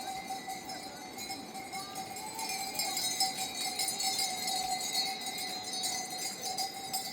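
Goat bells clinking and jingling as a herd moves, busier from about halfway through, with a steady high tone underneath.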